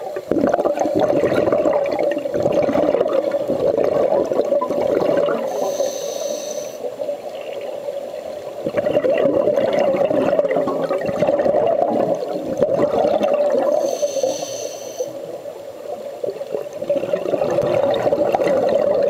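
Scuba diver breathing through a regulator underwater: long gurgling stretches of exhaled bubbles, broken twice by a short, higher hissing inhale, about six seconds in and again about fourteen seconds in.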